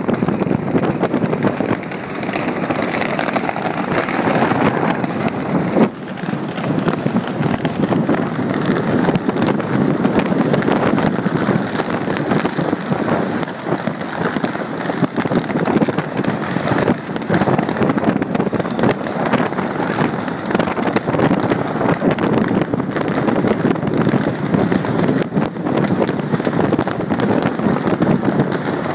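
Many fireworks going off at once: a constant din of overlapping bangs, pops and crackles, with no let-up.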